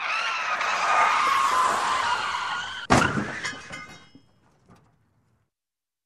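Car tyres screeching with a wavering squeal for about three seconds, then a sharp, loud crash impact. Debris clatters and rings after the impact and dies away within about two seconds.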